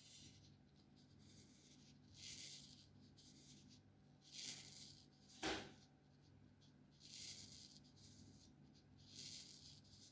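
Faint strokes of an alcohol marker's felt tip rubbing across paper, about one every two seconds. A single sharp click about halfway through is the loudest sound.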